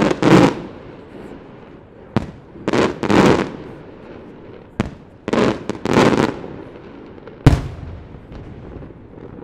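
Aerial fireworks shells bursting: sharp single bangs every two to three seconds, mixed with longer, louder rumbling bursts lasting up to about a second.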